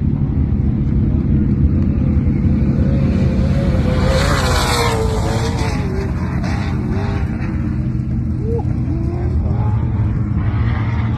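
Off-road race vehicle engine running, its pitch wavering up and down as it revs, with a brief louder rush of noise about four seconds in.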